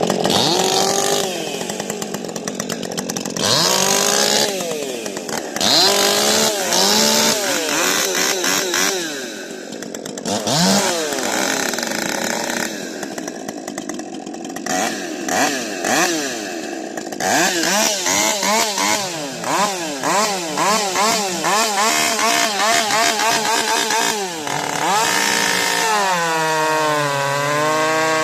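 Ported Husqvarna 550 XP Mark II two-stroke chainsaw revving, its pitch sweeping up and down repeatedly as the throttle is opened and released, with quick blips in the second half. Near the end it settles to a lower, wavering speed.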